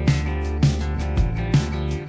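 Background music: a plucked-guitar track with a steady beat, a note struck about every half second.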